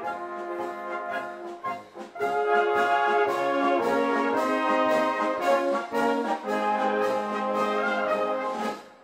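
Brass band playing, with tubas, tenor horns and trumpets holding full chords over a steady beat. The music gets louder about two seconds in and breaks off briefly near the end.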